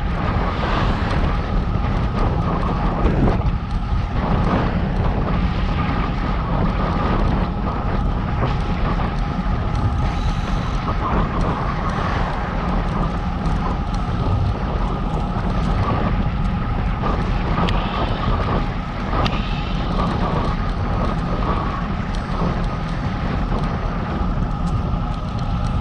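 Wind buffeting the microphone while cycling: a steady low rumble with a faint constant hum above it.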